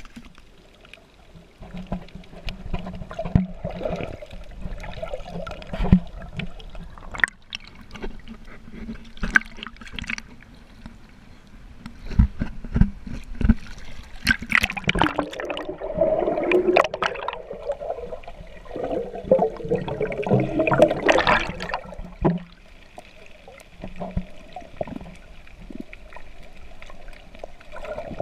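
Water sloshing and gurgling, with many short knocks and splashes and a louder, busier stretch in the middle.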